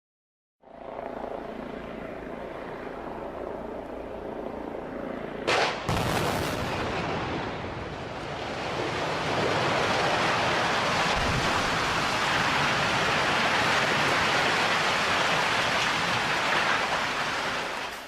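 Building demolition: a steady low background, then a sudden sharp blast about five and a half seconds in, followed by a long, dense rushing rumble of the structure coming down that grows louder and holds.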